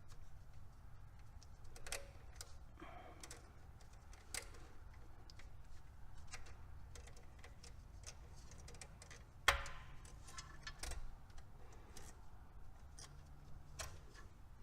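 Irregular small metallic clicks and taps from hand work on the distributor's ignition parts, with one louder knock about nine and a half seconds in, over a steady low hum.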